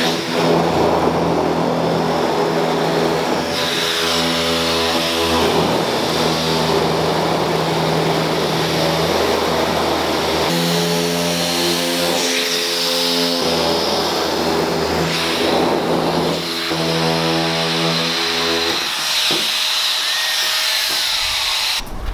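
Handheld power cutter sawing through the sheet-metal roof of a Chevrolet Silverado single-cab truck, cutting the opening for a sunroof. A steady whine with a rough cutting noise over it, its pitch shifting several times; the whine drops away near the end, leaving the rougher noise.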